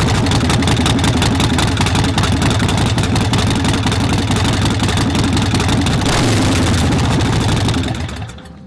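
Harley-Davidson Forty-Eight's air-cooled 1200 cc V-twin idling through newly fitted Vance & Hines Short Shots exhaust: loud, with a deep, pulsing low tone. The engine is switched off near the end.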